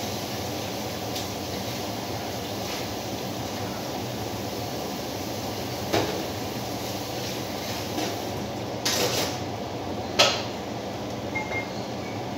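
Steady whir of a kitchen range-hood extractor fan, with a few sharp knocks and a clatter about six to ten seconds in, the loudest near ten seconds.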